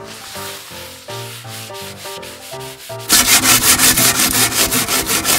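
Scrubbing on plastic: a toy toilet brush scrubbed quickly against a toy toilet, starting loudly about three seconds in at about five strokes a second. Before it, fainter wiping of a paper towel on a toy mirror, over light background music.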